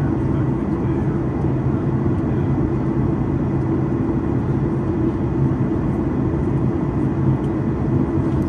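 Steady low drone of engine and airflow noise inside the cabin of a Boeing 737, heard from a window seat beside the engine, with the airliner descending toward landing. The drone holds even throughout, with no change in pitch or level.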